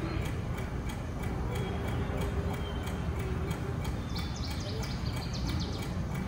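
Steady ticking at about four ticks a second over the low murmur of a crowd in a large hall, with a short run of high chirps about four seconds in.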